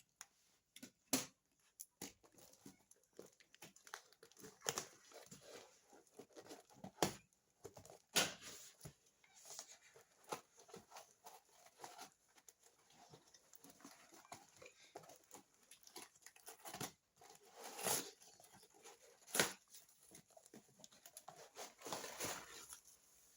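Packaging being handled and opened: irregular clicks, knocks and short bursts of rustling and tearing, with a longer rustle near the end.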